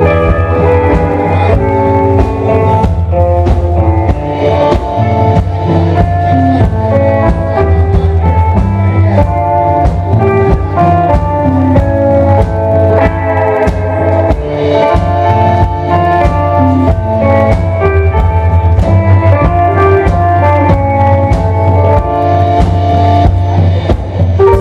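Live instrumental rock from a small band: electric guitars playing melodic picked lines over a drum kit, loud and continuous, with a heavy sustained low end.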